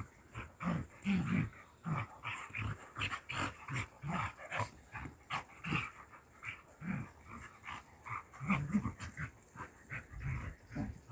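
A red kelpie and a border collie play-fighting, with a rapid run of short growls and snarls, two or three a second, mixed with sharp snaps and huffs.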